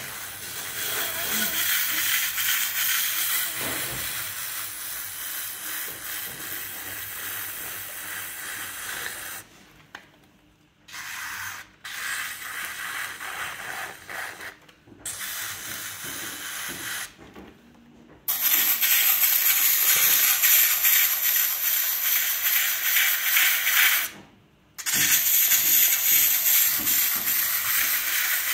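A trimming tool scraping Bennetts terracotta clay on a large bowl spinning on a potter's wheel, cutting off shavings: a steady scraping hiss. It stops briefly several times as the tool comes off the clay, and is loudest over the last ten seconds.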